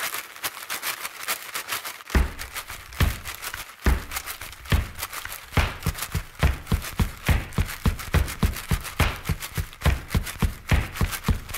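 Percussion keeping a steady quick beat: light taps at first, then deep drum thumps from about two seconds in.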